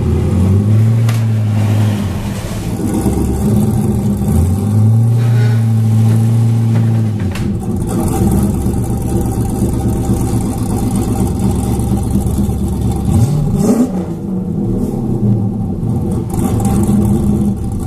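Camaro engine under load towing a heavy pallet by strap, revving up and holding for a second or few before dropping back toward idle, about four times. A single sharp knock comes about seven seconds in.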